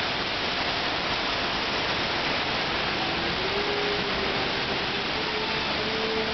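Steady rush of a large mass of water pouring and surging down a street set, a theme-park flash-flood effect. A faint held tone joins about halfway through.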